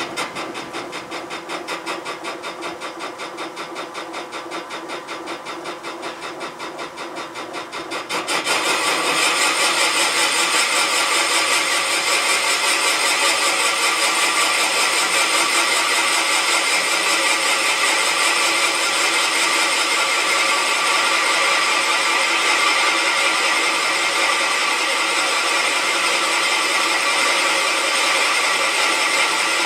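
Serdi valve-seat machine running with a fast pulsing. About eight seconds in the sound turns suddenly louder and harsher and stays that way as the cutter feeds into the cast-iron Pontiac 455 head, machining the pocket for a hardened exhaust seat insert.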